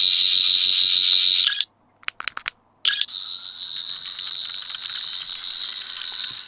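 Electronic sonic screwdriver sound effects from a 14th Doctor sonic screwdriver toy held up to the microphone, in the regular mode where each press of the activation button gives a different effect. A high whirring effect cuts off about a second and a half in, a few clicks of the button follow, and a second, different whirr starts about three seconds in and fades near the end.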